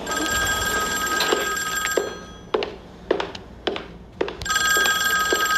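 An old telephone ringing: two rings of about two seconds each, with a pause of about two seconds between them. Soft knocks come about twice a second during the pause.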